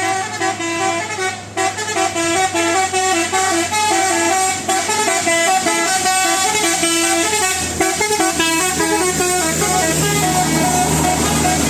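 Bus's Basuri multi-tone 'telolet' air horn playing a fast melody of short stepped notes, over a steady low hum.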